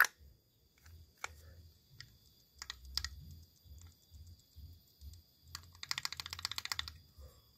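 Small scattered clicks and knocks from hand tools and metal parts being handled during work on a scooter's CVT, with a quick run of rapid clicks about six seconds in.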